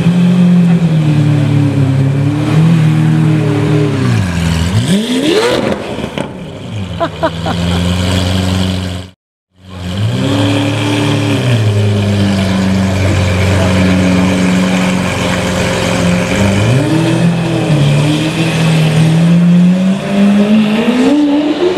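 Lamborghini Aventador's V12 engine revving in repeated blips over a low idle, with one sharp high rev about five seconds in. There is a brief silence about nine seconds in, and near the end the engine note climbs steadily as the car pulls away.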